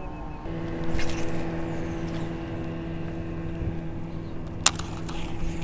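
Minn Kota electric trolling motor humming steadily. It switches on about half a second in, and there is a sharp click near the end.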